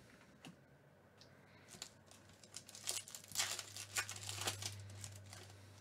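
Foil wrapper of a 2019 Topps Holiday baseball card pack being torn open and crinkled by hand, a run of crackling tears and rustles loudest from about three to five seconds in.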